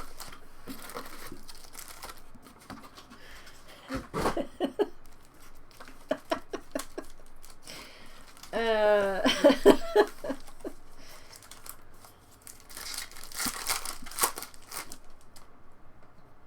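Foil trading-card pack wrappers crinkling and tearing as packs are opened, with cards shuffled in between. A short voiced sound, like a brief vocal noise or laugh, about nine seconds in.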